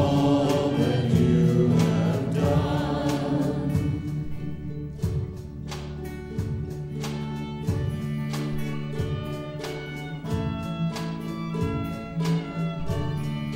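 Worship band and congregation singing a contemporary praise song. About four seconds in the voices drop out and the band plays on alone, with sustained chords over a steady beat.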